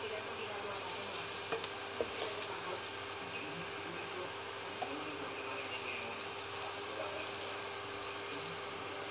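Butter sizzling and frying as it melts in a hot nonstick wok, with a few light taps and scrapes of a spatula pushing the lumps around.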